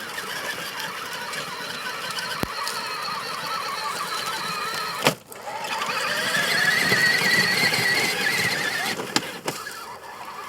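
Power Wheels Jeep Hurricane 12V ride-on's electric drive motors and gearboxes whining as it drives on grass. A sharp click about five seconds in, then the whine comes back louder and higher for a few seconds before easing off.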